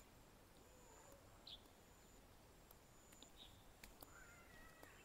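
Near silence: faint outdoor ambience with a few short, faint bird chirps, one about one and a half seconds in.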